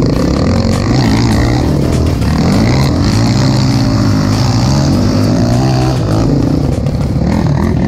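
Yamaha Raptor 700 ATV's single-cylinder four-stroke engine revving up and down under load while riding up a muddy hill, with a second quad's engine running alongside.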